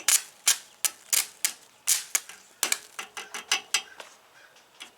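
Irregular sharp metallic clicks and clinks from metal hand tools and welding rods being handled, about fifteen in all, stopping near the end.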